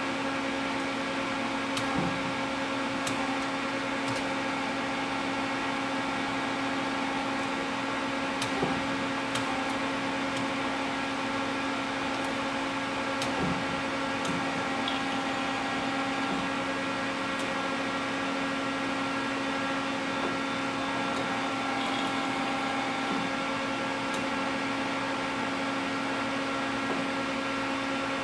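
Mori Seiki TL-40A CNC lathe running with a steady machine hum of several held tones over a hiss, and a few light clicks scattered through.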